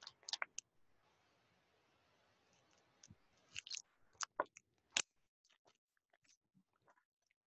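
Papers being handled on a table: scattered short crinkles and sharp clicks, loudest about five seconds in, over faint room hiss.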